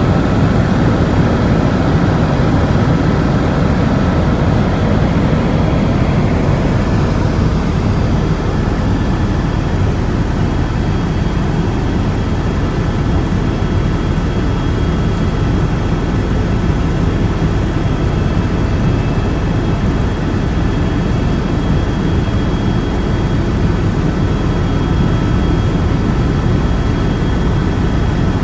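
Loud, steady engine-like rumble with a few faint steady whining tones above it.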